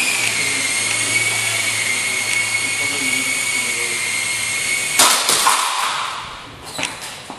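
Small electric toy helicopter's motor and rotor giving a steady high-pitched whine with a low hum under it. About five seconds in the whine stops with a sudden loud clatter, then a few faint clicks.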